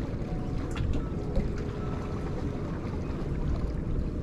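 Wind buffeting the microphone as a steady low rumble, with water washing against the jetty rocks; a couple of light clicks about a second in.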